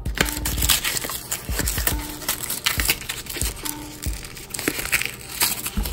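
Paper and plastic packaging rustling, crinkling and tearing as a knife is pulled out of its wrapper, with irregular crackles and scrapes.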